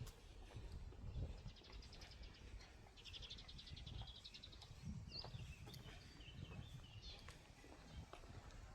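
A small songbird gives a rapid high trill about two seconds in, then scattered chirps, over faint footsteps on pavement.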